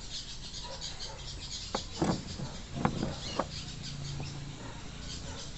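Dense, fast-pulsing high chirping of insects and birds, over a steady low hum. A few short, sharp clicks and knocks come about two to three and a half seconds in, from hands working on the seat parts.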